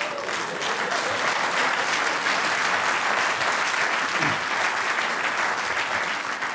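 A large theatre audience applauding steadily, then easing off near the end.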